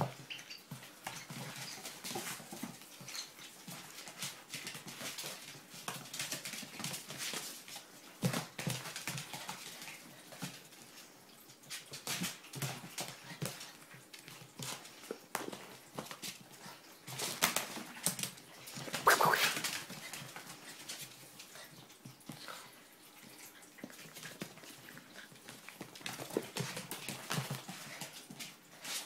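Ferrets and a puppy at play on a hard floor: claws scrabbling and light knocks throughout, with a short whine about two-thirds of the way through.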